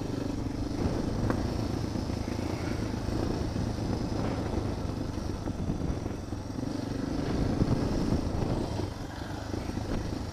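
Suzuki DR650 dirt bike's single-cylinder four-stroke engine running at a steady cruise on a gravel track. It gets a little louder about seven seconds in and eases off near nine seconds.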